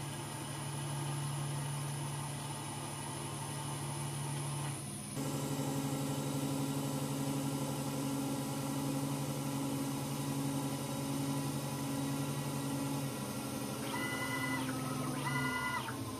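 Lathe spindle running while a turning insert cuts down the steel shank of a milling cutter, a steady hum with a high whine that steps up about five seconds in. Near the end two short rising-and-falling whines sound as the tool moves away from the part.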